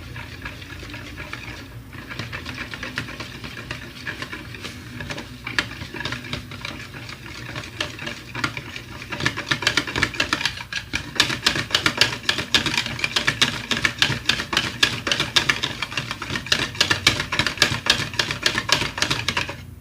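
Egg-enriched martabak batter being beaten by hand in a bowl, the utensil clicking rapidly against the bowl; the beating gets faster and louder about nine seconds in.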